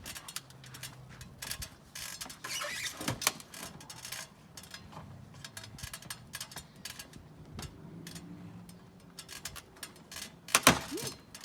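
Irregular creaks, clanks and scrapes of a heavy RV rooftop air conditioner being hauled up a ladder onto a bus roof, with one loud knock near the end.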